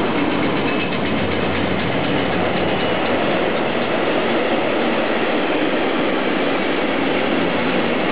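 Container freight train's flat wagons rolling past: a steady, unbroken noise of steel wheels running on the rails.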